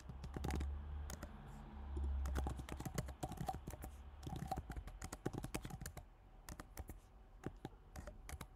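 Typing on a computer keyboard: a quick, irregular run of key clicks, thinning out near the end.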